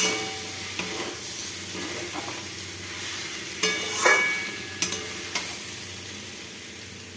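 Potato and pointed-gourd curry sizzling in a hot pot as it is stirred, the hiss slowly dying down. A metal spoon clinks against the pot a few times around the middle.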